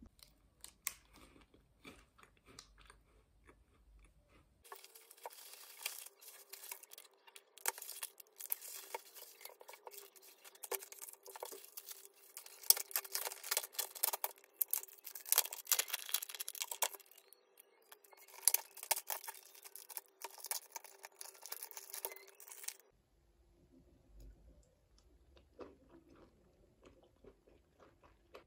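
Crinkling, crackling and tearing of plastic food wrapping being unwrapped and handled. It is faint at first, then a dense, louder run of crackles lasts most of the middle, and it turns faint again near the end.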